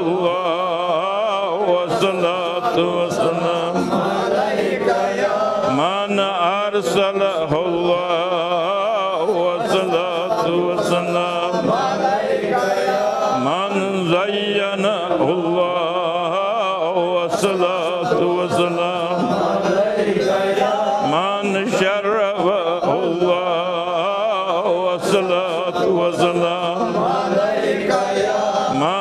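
Devotional chanting by male voices, a drawn-out melodic recitation that wavers up and down in pitch without break, with a few sharp clicks.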